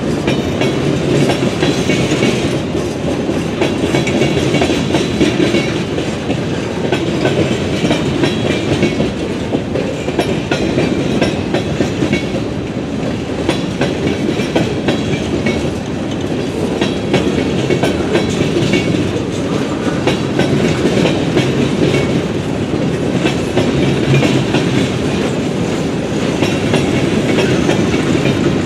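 Freight train of boxcars rolling past close by: a steady rumble of steel wheels on rail with many sharp clicks and rattles.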